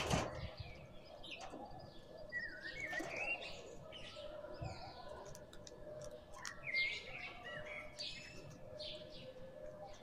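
Birds chirping and twittering in short, wavering calls, over many sharp clicks of crows' beaks pecking grain off a concrete floor. A loud knock comes right at the start.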